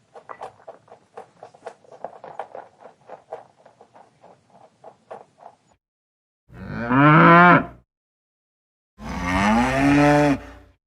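A cow mooing twice, two long low calls about a second apart, each the loudest thing here. Before them, in the first half, a run of faint short taps, about four a second.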